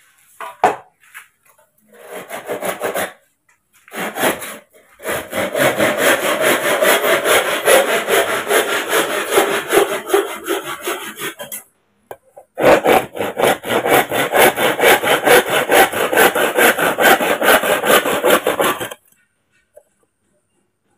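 Hand saw cutting through a green bamboo pole with rapid back-and-forth strokes: a few short strokes at first, then two long spells of steady sawing with a brief pause between them.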